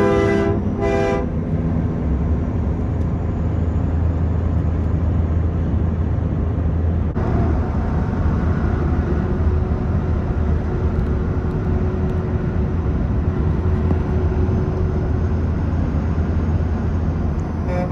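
Locomotive air horn ending in two short blasts within the first second or so, then the steady low rumble of a passing train. Another horn blast begins right at the end.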